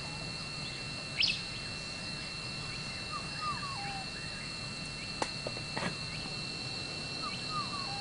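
Outdoor nature ambience: insects keep up a steady high drone with one constant shrill tone, and a bird gives a short call that falls in pitch, twice. A brighter chirp comes about a second in, and two sharp clicks come a little past the middle.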